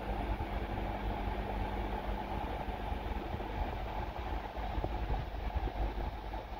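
Steady underwater rumble and hiss of pond water heard through a submerged camera, with a constant low hum running through it and a few faint ticks.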